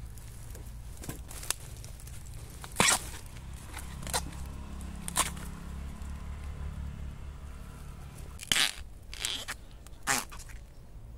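Dry bamboo leaf litter and twigs crunching and snapping underfoot and under hand, in about six sharp cracks. The loudest come about three seconds in and again near the end, over a low steady rumble.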